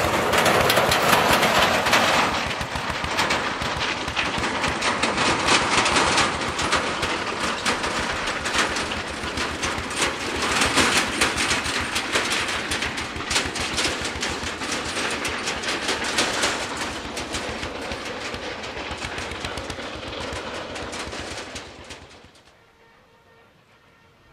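Rapid, rattling beat of a small farm tractor's diesel engine, mixed with narrow-gauge coal wagons rolling along the track. The sound cuts off suddenly near the end and gives way to quiet.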